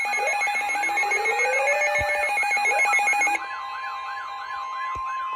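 Several electronic alarm sounds layered together: a fast warbling siren, repeating rising whoops and rapidly pulsing ringing tones. About three and a half seconds in, the pulsing tones and whoops cut off, leaving the warbling siren and one steady high tone.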